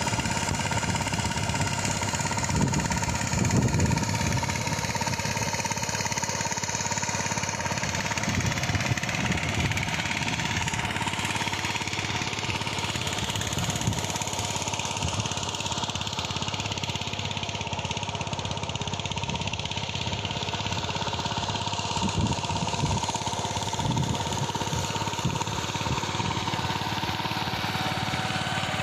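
Farm machine's engine running steadily while ploughing, with a constant high tone and an uneven low rumble.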